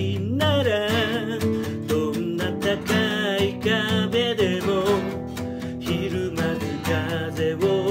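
Acoustic guitar strummed in steady chords, with a voice singing a wavering melody over it.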